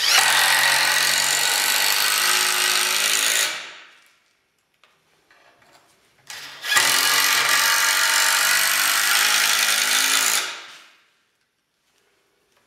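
Cordless drill driving wood screws at an angle through the tenons into the log legs: two runs of about four seconds each, the second starting about six seconds in, each tailing off at the end.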